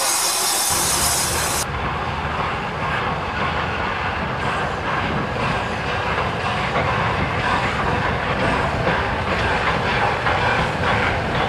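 Steam hissing from a standing 9F locomotive's cylinder drains breaks off in the first couple of seconds, then Peppercorn A1 4-6-2 No. 60163 Tornado passes tender-first with its train, its wheels clattering in a steady rhythm over the rail joints.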